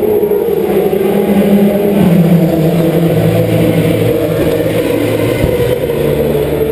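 Historic Lotus single-seater race car's engine idling while the car waits, a little louder about two seconds in, then settling to a lower pitch a second later and rising slightly again near the end.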